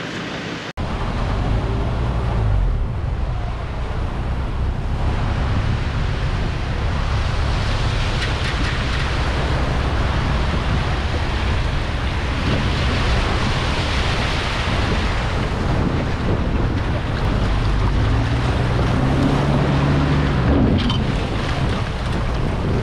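Small waves washing and breaking around a boat trailer in shallow surf, with strong wind buffeting the microphone as a steady low rumble.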